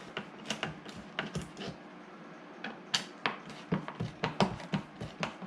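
Irregular light clicks and taps of a Torx driver working screws in a car door handle mount, several a second with a short gap near the middle.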